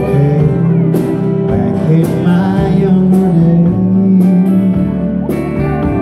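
Live band playing a country-style song: electric guitar and bass over a steady drum beat.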